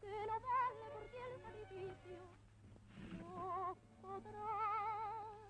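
Music: a slow melody in long held notes with heavy vibrato, a brief pause about three seconds in, then the tune resumes.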